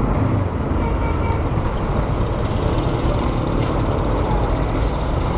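Honda CB500X's parallel-twin engine running under way in dense city traffic, with a steady rumble of engines and road noise from the surrounding vehicles.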